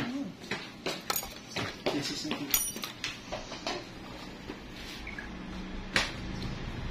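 Small metal clicks and taps of steel nail nippers and a pointed nail probe working at a toenail, with a sharper click near the end. A steady low hum comes in about five seconds in.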